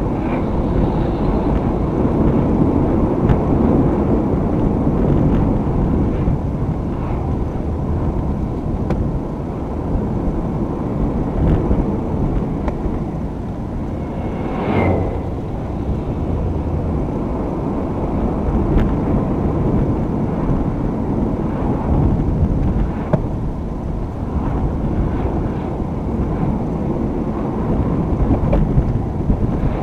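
Steady road and engine noise of a moving car, picked up by a dashcam microphone inside the cabin, with a brief high chirp about halfway through.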